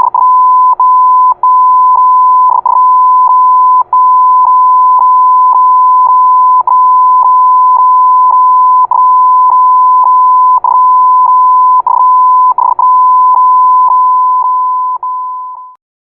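Morse code sent as a single high beep tone: long stretches of tone broken by many brief gaps. It fades out and stops near the end.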